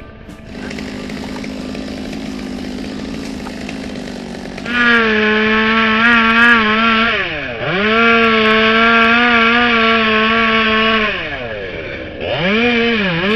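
Two-stroke chainsaw running quietly at first, then opened up to full throttle about five seconds in. Its pitch dips sharply once as the throttle is let off and opened again, drops off again after about six seconds, and comes back near the end with a wavering pitch as it bogs in the cut through the dead oak.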